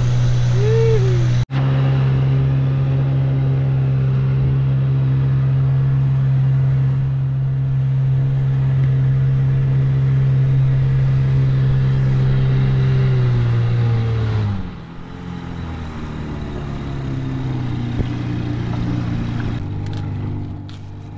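Small outboard motor driving an inflatable dinghy at a steady speed, then throttled back about fourteen seconds in. It drops in pitch and loudness and settles into a slower, quieter run.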